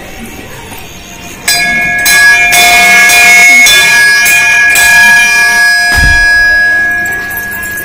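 Temple bell rung by hand several times in quick succession, its steady metallic ring lasting between strikes and fading toward the end.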